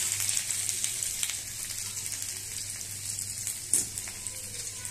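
Chopped ginger sizzling in hot oil in an aluminium kadhai, the hiss slowly easing off. A single sharp click near the end.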